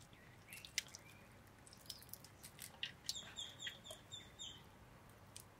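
Faint bird chirping, with a quick run of repeated high chirps about three seconds in. A few soft clicks and taps sound under it, the sharpest just under a second in.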